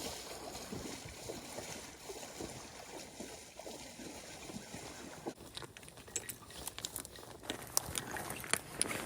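Water sloshing with wind on the microphone, joined about halfway through by a run of sharp clicks and knocks.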